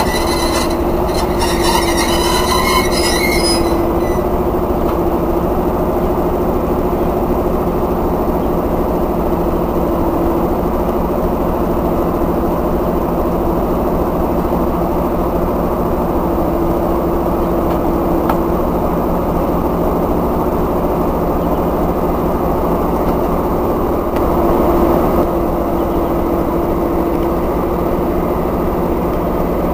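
SP42 diesel locomotive's engine running steadily as it moves slowly with its coach, a loud even drone with a low hum. High-pitched squealing from the wheels sits over it for the first few seconds, and the engine swells briefly about 24 seconds in.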